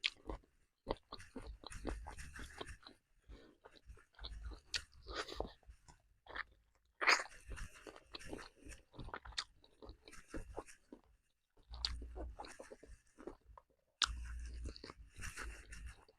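Close-up chewing of roast chicken: wet, irregular mouth sounds with bites and small crunches, stopping and starting several times.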